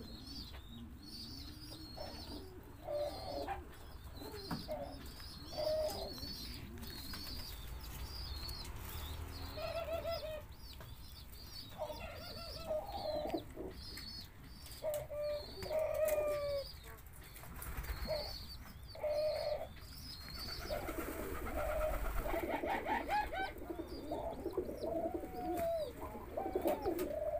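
Collared doves cooing over and over, with short low coos repeating throughout and crowding together in the last few seconds. High chirps run alongside the coos.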